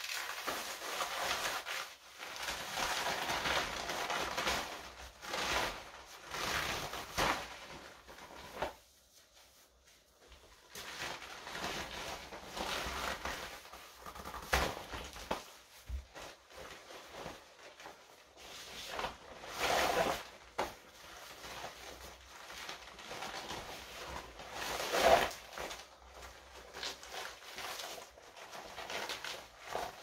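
Shiny wet-look leggings rustling and crinkling as they are peeled off and handled, in irregular bursts with a short pause about nine seconds in and a sharper crinkle near the end.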